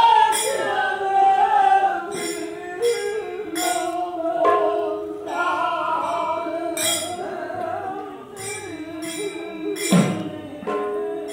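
Manipuri Nat Sankirtan music: male voices singing long, slowly moving held notes, with hand cymbals clashing at irregular intervals. A deep pung drum stroke with a falling pitch comes about ten seconds in.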